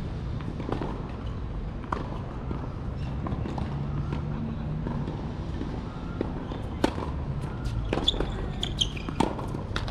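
Tennis balls struck by rackets and bouncing on a hard court during a rally: a run of sharp pops in the last three seconds, over a steady low background hum.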